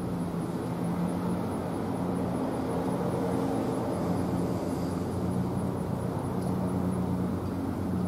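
W. S. Darley Champion outdoor warning siren coasting after its alert, its rotor still turning slowly and giving a low, steady drone.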